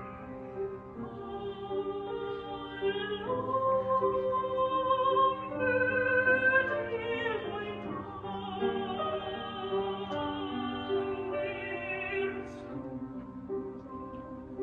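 Soprano singing with grand piano accompaniment, the voice holding long notes with vibrato. The voice stops about twelve seconds in, leaving the piano playing alone.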